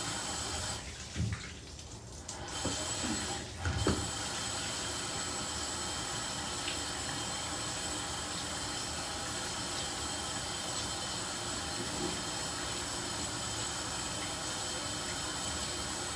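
Shower water running in a steady hiss. It drops off briefly about a second in, with a couple of low thumps before the spray settles again.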